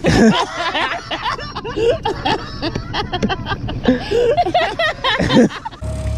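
People laughing and chattering together, without clear words. Near the end a cut brings in steady background music.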